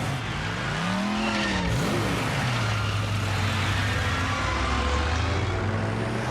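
Vehicle engine sound effect: the engine revs up and down in swooping pitches, then settles into a steady low drone after about two seconds.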